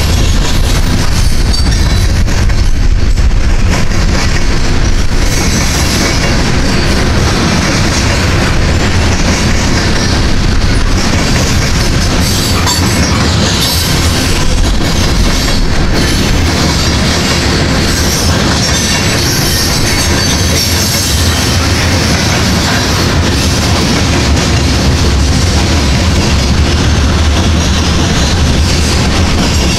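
Freight train of covered grain hopper cars rolling past at close range: a loud, steady rumble with clattering wheels on the rails.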